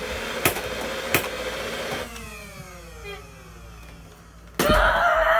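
A small electric motor whirring, with a few sharp clicks, then winding down with a falling pitch. A sudden loud burst comes near the end.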